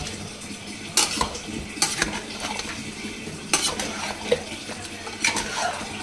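A steel spatula stirs a wet mix of chicken, potatoes and yogurt in a metal cooking pot, scraping and clinking against its sides several times, with a soft sizzle from the pot underneath.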